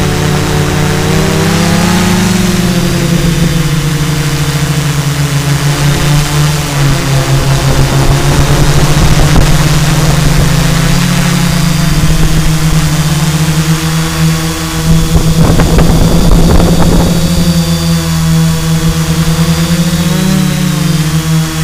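Diatone White Sheep quadcopter's four brushless motors with 10-inch propellers humming in flight, the pitch of the hum rising and falling as the throttle changes. Around fifteen to seventeen seconds in, a rough crackling noise rises over the hum.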